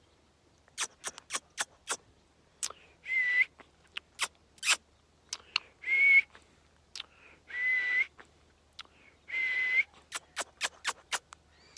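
A parrot whistling: four short notes, each ending in a small upward flick, among a run of sharp clicks.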